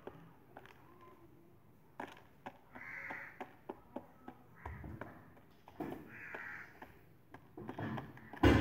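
Young pigeon pecking at grain in a woven grass basket: scattered sharp clicks of beak on grain and weave. Two short, harsh, caw-like bird calls come about three and six seconds in, and a louder thump near the end.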